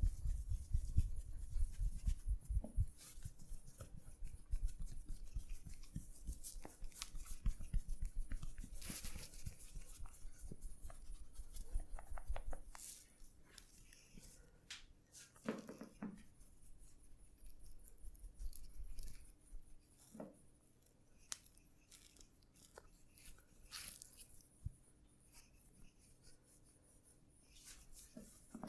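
Hands massaging a person close to the microphone: skin and hair being rubbed and pressed, with many small sharp clicks and crackles. Busy and fuller for the first half, then softer, with scattered clicks and light rubs.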